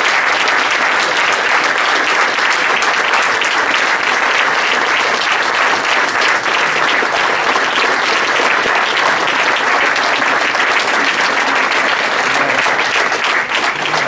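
An audience applauding, steady and loud, many hands clapping at once.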